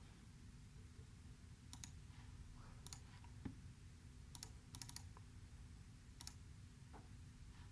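Faint computer mouse clicks, about six spread a second or so apart, some as quick double clicks, over a faint steady low hum.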